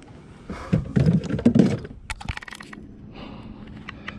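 Handling noise in a kayak: a dense burst of knocks and scrapes from about half a second to two seconds in, then a few sharp clicks and lighter ticks.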